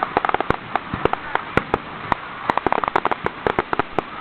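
Fireworks display going off: a rapid, irregular string of sharp bangs and crackles, several a second, with crowd voices underneath.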